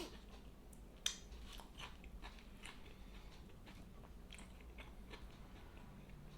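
Faint close-miked chewing and biting of a large turkey sandwich: a string of short wet mouth clicks, with a sharper bite about a second in.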